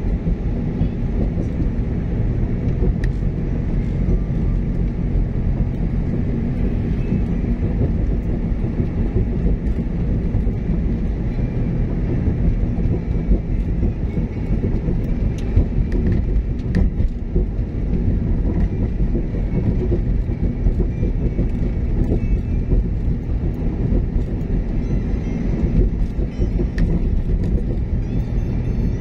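Cabin noise of a car driving at a steady speed: a low, even rumble of the engine and the tyres on the road.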